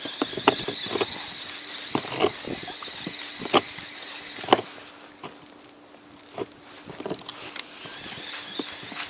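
A spinning reel being cranked during a jig retrieve, with irregular sharp taps and knocks as the rod and reel are handled in a small inflatable boat. A faint steady hum sits underneath.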